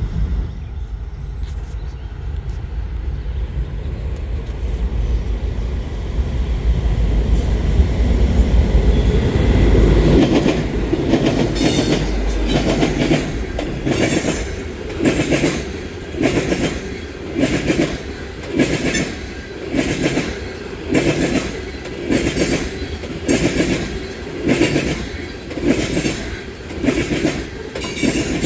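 A freight train passing close by: a deep diesel rumble for about the first ten seconds, then the oil train's tank cars rolling past with their wheels clacking over rail joints in a steady rhythm, about one clack a second.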